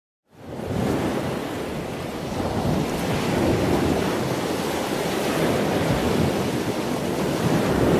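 Ocean surf sound effect: a steady wash of breaking-wave noise that starts suddenly, opening the backing track.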